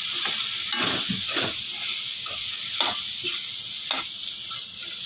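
Boiled yellow peas and potatoes sizzling in hot masala in a metal kadai while a metal spoon stirs them in, scraping and knocking against the pan about once a second.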